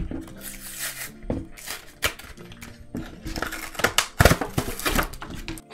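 Clear plastic blister pack and its cardboard backing being torn open by hand: irregular crackling and crinkling of plastic, with a thicker run of sharp crackles about three to five seconds in.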